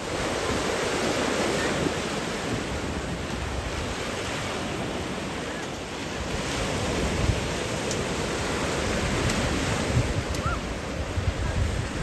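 Small waves breaking and washing up a sandy beach, a steady rushing surf, with some wind rumbling on the microphone.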